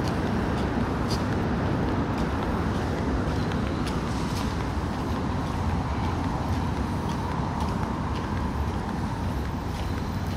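Steady city traffic noise with a low rumble, one vehicle swelling a little past the middle. Light footsteps on paving click about once a second over it.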